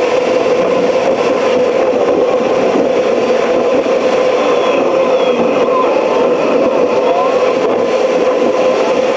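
Steady engine and road noise of a vehicle driving along a road, picked up by an onboard camera, with a faint rising whine a few times.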